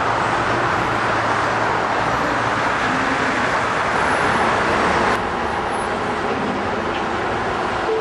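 Steady rumble of road traffic and heavy vehicles, easing slightly and turning duller about five seconds in.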